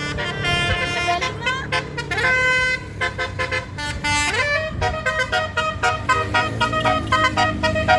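Bus basuri horn, a multi-tone melodic horn, playing a tune in short stepped notes with an upward pitch slide about four seconds in, over the low rumble of traffic.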